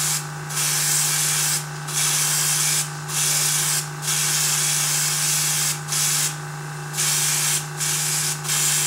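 Airbrush spraying paint, a steady hiss of air broken by about eight short pauses where the trigger is let off.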